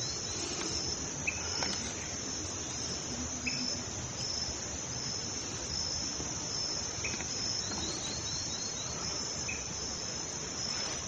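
Steady high-pitched chorus of insects such as crickets in dry scrub, with short runs of quick chirps now and then.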